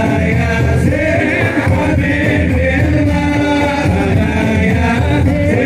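A male voice singing a sholawat, an Islamic devotional song, with other voices joining in over dense, steady percussion.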